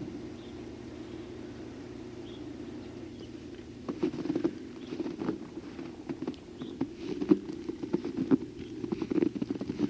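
Footsteps crunching through fresh snow, starting about four seconds in as uneven crackly steps, over a steady low hum.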